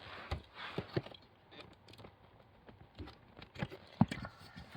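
Plastic relays being pulled out of and pushed into the fuse box sockets by hand: the PCM relay and the fog light relay swapped, giving scattered clicks and knocks with handling noise, the loudest click about four seconds in.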